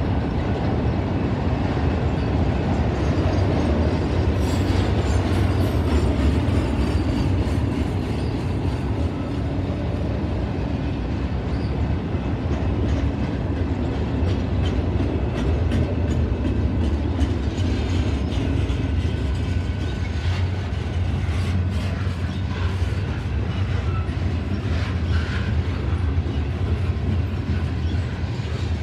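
Freight cars rolling past, enclosed autorack cars and then covered hoppers: a steady rumble of steel wheels on rail with clickety-clack as the wheels cross rail joints, and sharper clicks and knocks in the second half.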